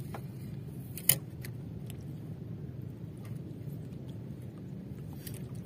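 Small clicks and taps of fishing line and tackle being handled in a wooden outrigger canoe, with one sharp click about a second in, over a steady low hum.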